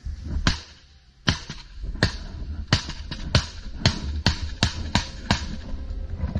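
A run of about a dozen sharp knocks or cracks, roughly two a second and unevenly spaced, over a low rumble.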